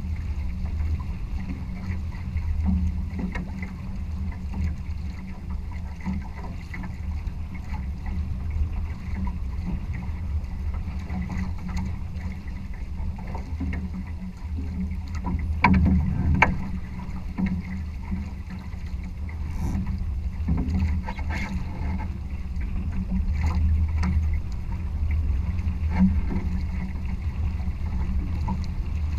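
Water rushing along the hulls of a Challenger racing trimaran under sail, with a steady low rumble of wind on the microphone, and two brief louder hits about halfway through.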